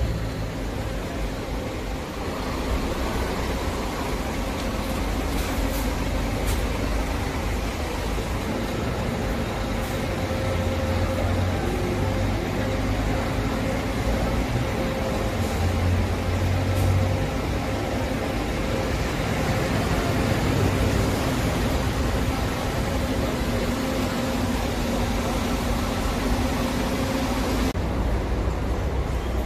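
Bus engine running with road traffic noise; a steady low rumble that swells a few times.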